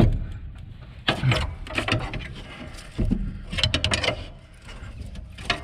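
Irregular clanking, scraping and knocking of tools on metal as a stuck part that will not come free is worked at by hand.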